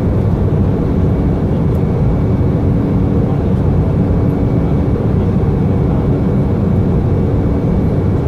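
Steady cabin noise of a jet airliner in flight: turbofan engines and rushing air, low and even, with a faint steady hum running through it.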